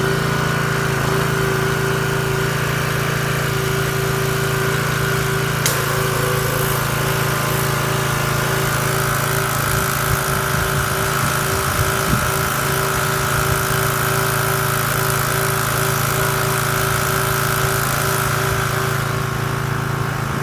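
Briggs and Stratton 675 series single-cylinder engine on a Craftsman 6.75 hp pressure washer running steadily at an even speed just after starting, with one short click about six seconds in.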